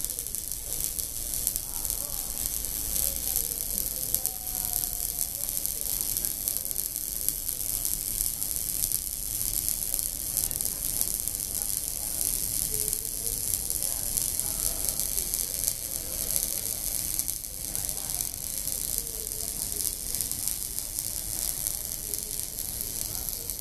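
Electric arc welding, the arc crackling and sizzling steadily without a break.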